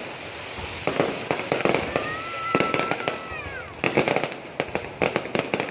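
Fireworks display: a run of bangs and crackling pops from bursting shells. About two seconds in, a whistle holds for over a second and then falls away in pitch.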